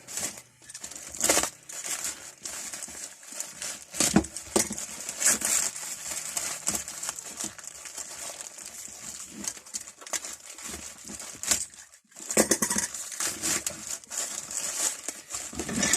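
Parcel packaging crinkling and tearing as it is unwrapped, in irregular rustles with a few sharper knocks mixed in.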